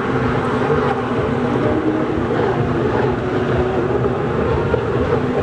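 Engines of several racing jet skis running at speed together: a steady drone whose pitches waver slightly as the machines race away.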